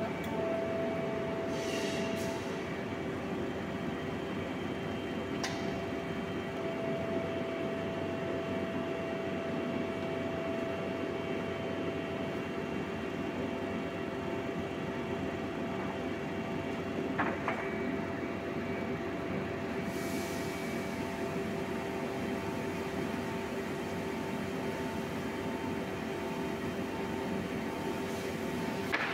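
Steady mechanical hum of a rotary wood clamp press running under its electric motor, with a couple of sharp knocks, about five seconds in and again around seventeen seconds.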